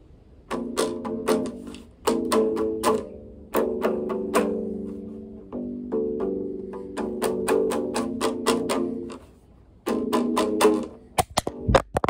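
Chords strummed on a guitar, each strum ringing and fading before the next, with a brief pause about nine and a half seconds in. A few sharp knocks come near the end, then the sound cuts off suddenly.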